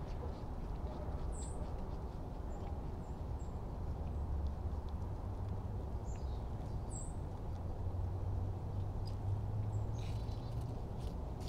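Outdoor ambience: a steady low rumble with a few short, high bird chirps. About ten seconds in, a cluster of soft rustles and clicks as the rabbit shifts forward through the dry leaves to the apple peelings.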